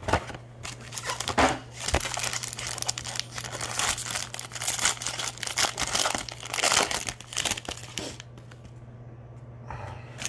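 Plastic wrapping on a box of trading cards being torn open and crinkled, a dense crackling that stops about eight seconds in. A steady low electrical hum runs underneath.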